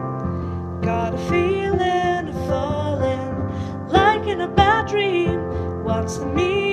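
A song with piano accompaniment and a sung vocal line that comes in about a second in.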